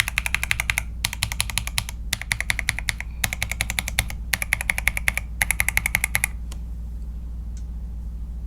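Tactile mechanical keyboard switches under PBT doubleshot keycaps being typed rapidly in six short bursts of fast clacking keystrokes, which stop a little past six seconds in.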